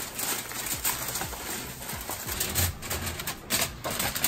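Aluminium foil crinkling and rustling as foil-covered disposable aluminium pans are handled and pushed onto an oven rack, with scattered light clicks and knocks.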